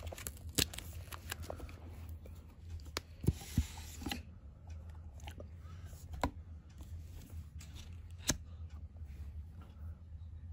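Huawei Watch GT 2 box being handled and opened by hand: scattered taps and clicks of the box and fingers, and a short scraping rustle about three to four seconds in as the lid slides off.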